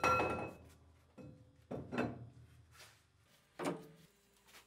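Clunks and knocks of metal on metal as a rusty steel pipe is handled against a lathe chuck, some leaving a short ring. There are about half a dozen knocks, the loudest at the start.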